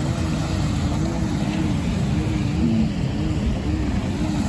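Wind buffeting the microphone with a steady low rumble, over a pitched hum that wavers up and down about twice a second.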